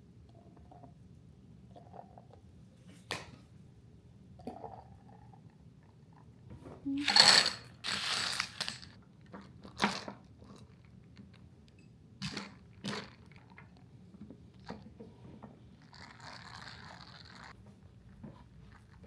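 Drink being made by hand: scattered clinks and knocks of a cup and utensils, with a loud crunchy clatter about seven seconds in, typical of ice cubes dropped into a cup, and a brief rushing noise near the end.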